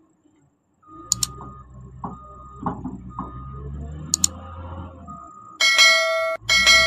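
Subscribe-button sound effect: a mouse double-click about a second in and another about four seconds in, then a notification bell ringing loudly twice near the end, over a low steady hum.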